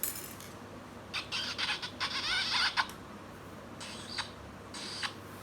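A children's sound book playing a quick string of high, chirpy kissing smacks, then two more short smacks.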